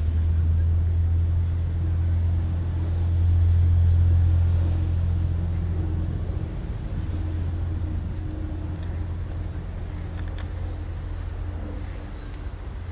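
Steady low engine drone with a constant hum, swelling slightly a few seconds in and then easing off.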